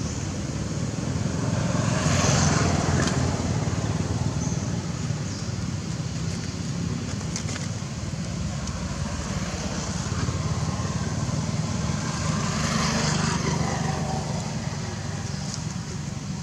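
Distant road traffic: a steady low rumble that swells twice, about two seconds in and again around thirteen seconds.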